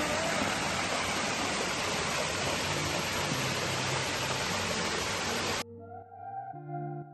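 Waterfall rushing: a steady, dense hiss of falling water that cuts off suddenly about five and a half seconds in, when music takes over.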